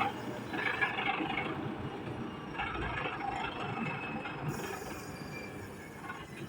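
Mansan 939L wheel loader running, with irregular metallic clanking and rattling.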